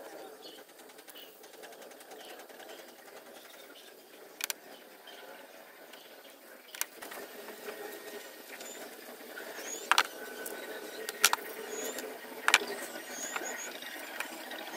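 Gloved hands handling welding cables and clamps: a few sharp metal clicks and clinks, scattered at first and bunched together in the second half, as pliers work on a cable end fixed to a copper ground clamp.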